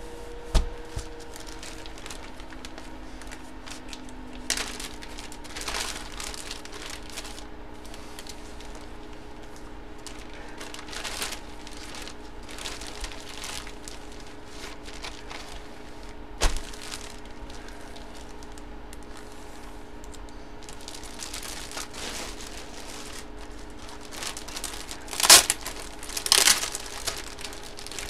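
Clear plastic bag crinkling and rustling as a folded jersey is handled and packed into it. Two sharp clicks break in, and the loudest crinkling comes near the end.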